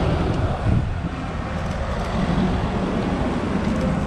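Engines and tyres of emergency vehicles, a fire engine and ambulances, driving past slowly in a convoy: a steady low rumble with road noise.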